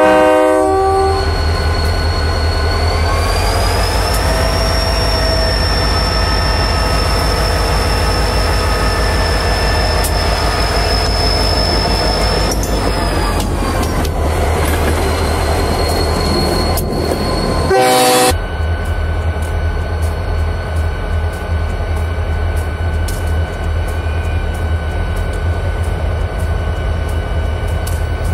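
Union Pacific diesel locomotive rumbling steadily as it rolls past up close, with a thin high whine that rises a few seconds in and falls back around the middle. Its horn sounds briefly at the very start and again in one short blast about two-thirds of the way through.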